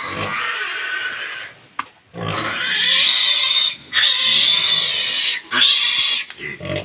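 Pigs squealing: a strained cry at the start, then three long, loud, high-pitched shrieks one after another in the second half.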